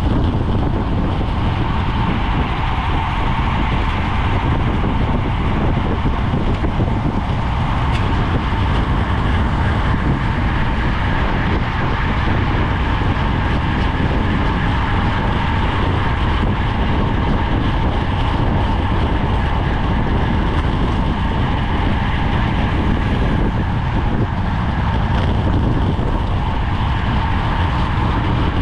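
Steady rush of wind and road noise on the microphone of a GoPro carried on a racing bicycle while riding.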